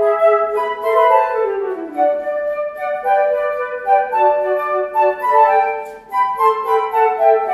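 A trio of flutes playing a fast Baroque movement in E minor, three parts moving together in quick notes. The playing breaks off briefly about six seconds in.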